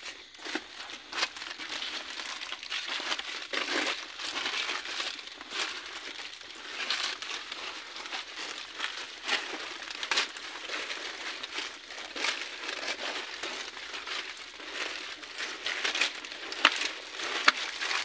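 Footsteps crunching and crackling irregularly on dry leaves and debris, with rustling as people brush past the walls and plants in a narrow passage.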